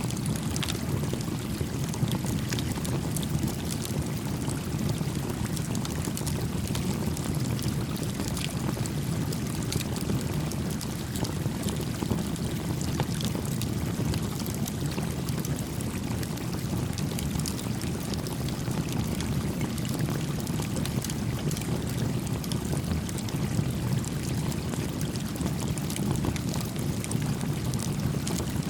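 A creek flowing steadily, low and even, with small crackles and pops from a wood campfire scattered throughout.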